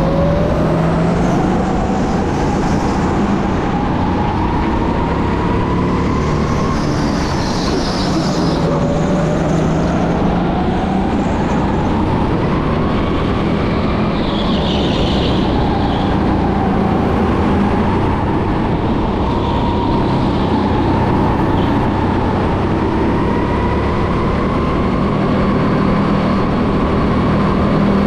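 Electric go-kart at racing speed, heard onboard: the motor's whine rises and falls as the kart accelerates and slows for corners, over a steady hum and tyre noise. Short higher squeals, likely the tyres in corners, come about eight and fifteen seconds in.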